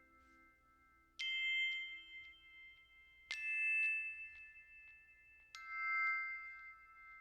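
Background music: three struck, bell-like notes about two seconds apart, each ringing on and slowly fading.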